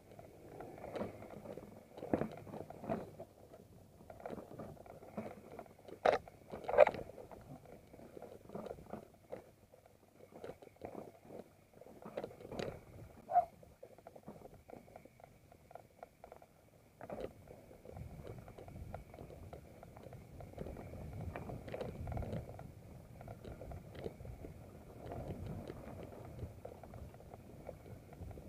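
Mountain bike rolling along a rough dirt singletrack, its frame and parts knocking and rattling irregularly as it jolts over bumps, with the sharpest knocks about six to seven seconds in; from about two-thirds of the way through a low rumble of the ride takes over.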